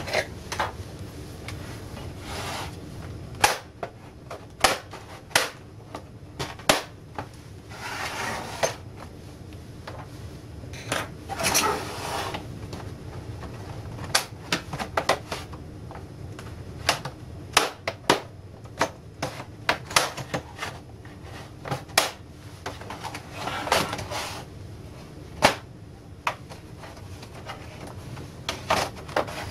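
Plastic clip tabs of an LCD monitor's back housing snapping and clicking as a plastic pry tool works around the seam. Irregular sharp clicks come every second or so, with a few longer stretches of plastic scraping and creaking.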